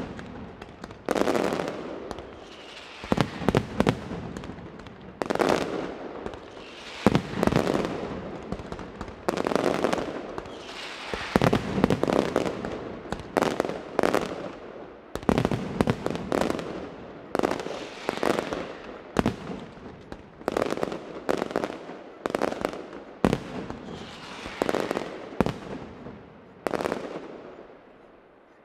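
Mascletà: ground-level firecrackers (masclets) going off in clusters of loud bangs, one burst about every two seconds in a steady rhythm. It dies away near the end.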